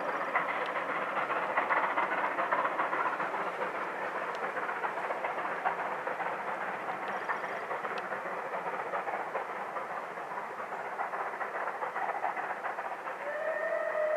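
Merchant Navy class steam locomotive 35028 Clan Line, a three-cylinder 4-6-2, working steadily with its train of Pullman carriages: a continuous mix of exhaust and wheels on rail. Near the end the locomotive's whistle starts, one steady note.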